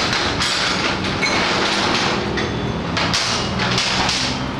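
Metal hand tools clinking and knocking on a steel lift platform, over a steady mechanical hum with a low drone.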